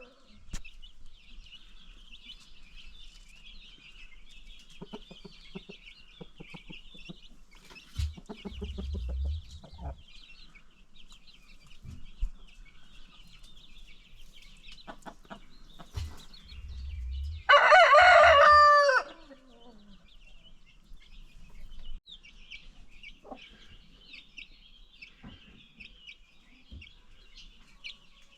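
A rooster crows once, about seventeen seconds in, one long call that drops in pitch at the end. Between crows, hens give short low clucks and a steady high cheeping chatter runs underneath.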